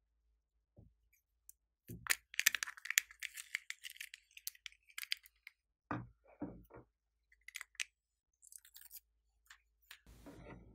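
Small plastic pieces and slime handled close to the microphone: a quick run of clicks and taps, two dull knocks about six seconds in, then a soft rustle near the end.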